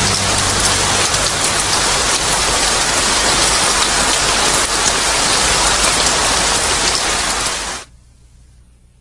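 Steady hiss of heavy rain, which cuts off abruptly about eight seconds in, leaving only a faint low hum.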